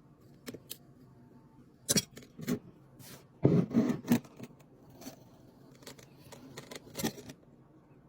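Kinetic sand being cut and scraped with a tool: a series of crisp slicing and scraping strokes, loudest in a cluster about halfway through.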